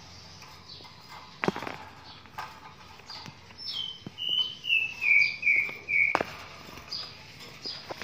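A small bird singing a run of about six notes that step down in pitch and grow louder, with short high chirps before and after it. A couple of sharp knocks come through as well, one early and one right after the run.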